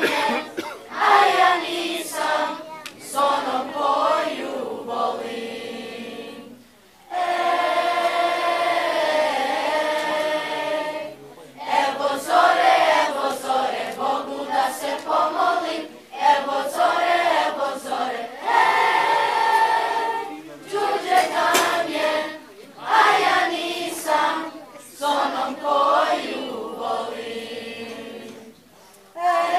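Children's choir singing together in long phrases, with a short breath pause about seven seconds in and another near the end.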